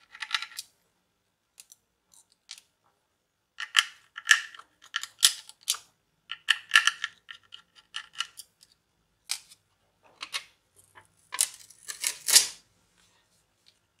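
Screwdriver taking the screws out of a laptop hard disk's metal caddy: scattered light metallic clicks and clinks, with a louder clatter near the end.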